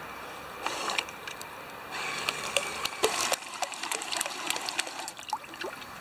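Water splashing and dripping as the Lego bottle boat's side propellers churn the pool surface: a short burst about a second in, then a longer stretch of splashes and drop-like plinks that dies away near the end.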